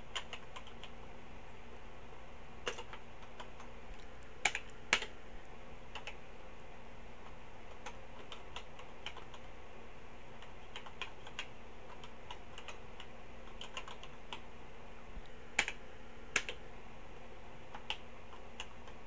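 Keystrokes on a Tandy TRS-80 Color Computer 2 keyboard as a command is typed out: scattered, irregular key clicks, a few louder than the rest, over a faint steady hum.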